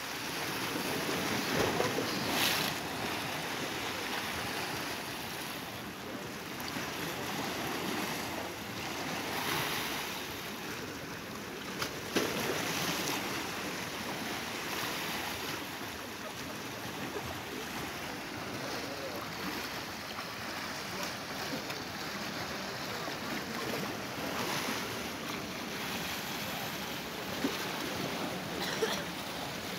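Small sea waves washing and splashing against a stone quay, a steady wash of water that swells into a louder surge every few seconds.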